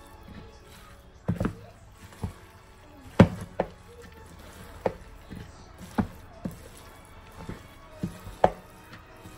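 Wooden spoon mixing a filling of rice vermicelli and chopped seafood in a bowl, knocking against the bowl about a dozen times at an uneven rate of roughly once a second, the loudest knock about three seconds in.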